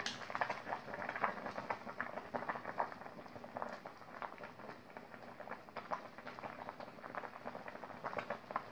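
Pot of chilacayote squash and corn kernels in sugared water at a rolling boil, bubbling with many small irregular pops.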